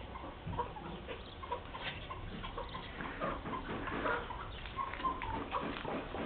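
Domestic chickens clucking: short, repeated calls that come thicker from about halfway through, among scattered light clicks and taps.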